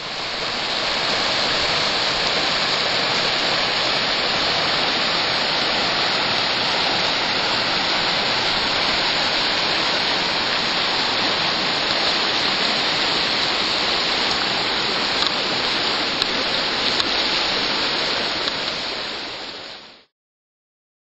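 Mianus River running high after a heavy rain and snowmelt: a steady, full rush of flowing water, fading out near the end.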